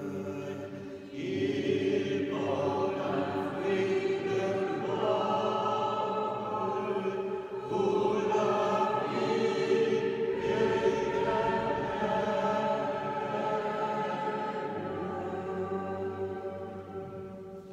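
A choir singing a slow liturgical chant in several voices, with long held notes that move to new chords every second or few. The singing fades away near the end.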